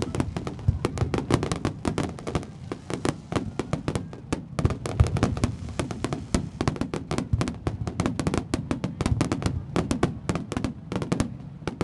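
Fireworks going off in a rapid barrage: dozens of sharp bangs and cracks in quick succession, stopping a little before the end.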